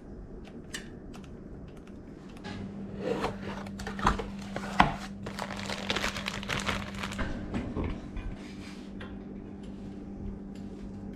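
Metal clinks, clicks and rattles of a bicycle chain and chain-breaker tool being handled during chain fitting, busiest in the middle stretch, with a low steady hum underneath.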